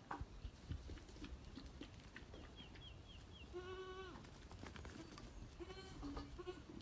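Goats bleating faintly: one drawn-out bleat that falls at its end, about three and a half seconds in, and a shorter bleat near the end.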